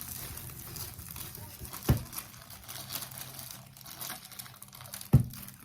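Clear plastic packaging of a diamond painting kit crinkling as it is handled, with two sharp thumps, one about two seconds in and a louder one near the end.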